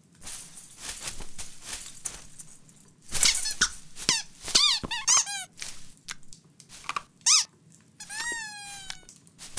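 Rustling in a Christmas tree's branches, then a run of short, high squeaks from about three seconds in, and a longer squeak falling in pitch near the end.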